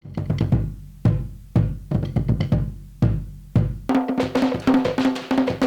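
Traditional Cook Islands drumming: deep booming drum strokes in quick groups, each dying away. About four seconds in, fast, steady wooden drum beats with a ringing pitch take over.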